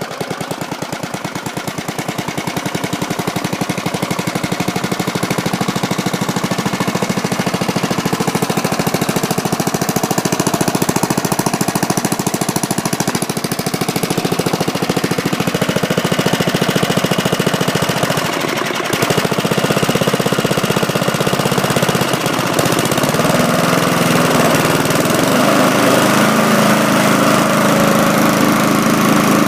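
Small 3.5 hp Briggs & Stratton single-cylinder engine on a Bolens mulching push mower, running steadily with a fast, even chugging just after starting. It has been freshly serviced with a new spark plug and a cleaned carburetor, and it runs well. Its speed dips briefly about 18 seconds in, and its note shifts a couple of times after that.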